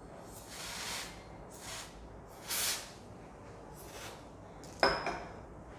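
Three short hisses from an aerosol spray can with a straw nozzle, aimed at the chocolate balls, in the first three seconds, then a single sharp click near the end.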